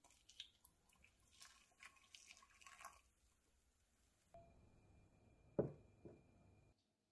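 Boiling water poured in a thin stream from a stainless steel saucepan into a ceramic bowl of ginger and spring onion, trickling and splashing for about three seconds. Later the ceramic bowl knocks against a hard board twice, the first knock the loudest.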